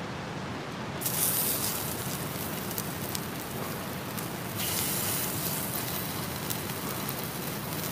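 Pieces of beef sizzling in hot oil in a frying pan. The sizzle flares up about a second in and again at about four and a half seconds as more meat goes into the pan.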